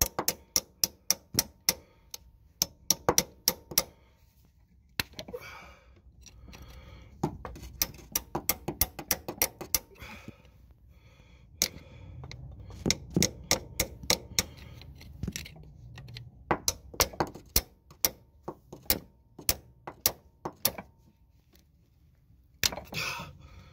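Rapid light metal-on-metal taps, about three to four a second in runs with short pauses, as a tool is worked against the old transmission axle seal to peel it out of its bore.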